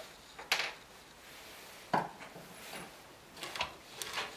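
Metal-on-metal and metal-on-wood clanks as a cast-iron machinist's vise is handled on its plywood base: a sharp clank about half a second in, a heavier knock near two seconds, then a quick cluster of lighter clicks near the end.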